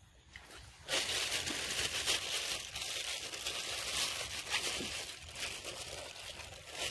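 Loud, close crinkling and rustling that starts abruptly about a second in and carries on with many small crackles.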